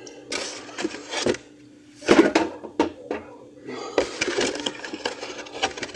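Drink cans and bottles being handled and set into a fridge: a series of clunks and knocks, loudest about two seconds in, with rustling between them.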